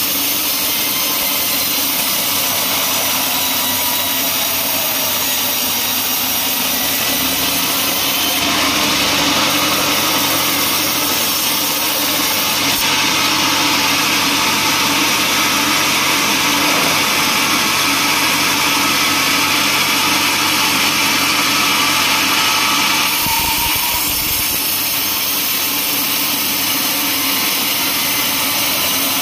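Large band sawmill running steadily. From about a third of the way in until near three quarters, the sound grows louder and brighter as the blade cuts through a teak log, then eases back to the machine running without a cut.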